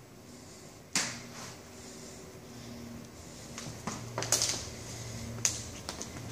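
A sharp knock about a second in, then a cluster of lighter clicks and taps a few seconds later, over a steady low hum.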